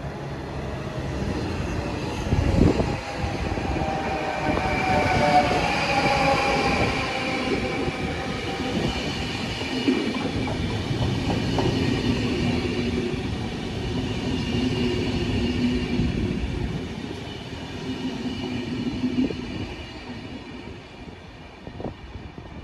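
DSB passenger train (IC4 unit with a Vectron electric locomotive and coach) running through the station. In the first several seconds a whine of several tones falls in pitch, then it settles into a steady hum with wheel clicks over rail joints, fading near the end.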